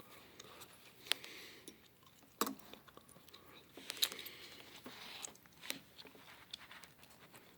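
A few sharp clicks spread over several seconds among faint rustling, the small handling noises of test leads and a capacitor being worked on a capacitor checker.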